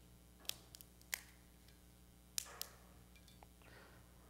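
A large altar bread (the priest's host) being broken by hand over the chalice: a handful of short, crisp snaps in the first three seconds.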